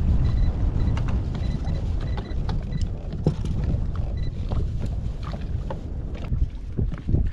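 Wind buffeting the microphone on a small boat, a heavy gusting rumble, with scattered light clicks and knocks. A faint steady high whine runs through the first few seconds.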